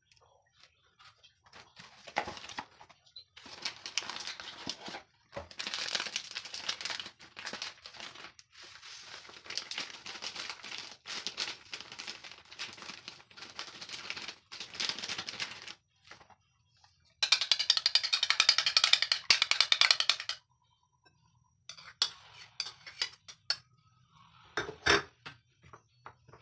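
Plastic pancake-mix bag crinkling and rustling in bursts as it is handled and emptied into a glass bowl, loudest for about three seconds two-thirds of the way through. Near the end a metal spoon clinks against the glass bowl as the batter is stirred.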